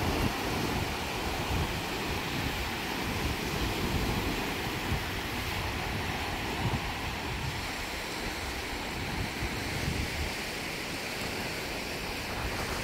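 Small surf breaking and washing up onto a sandy beach in a steady wash, with gusts of wind rumbling on the microphone.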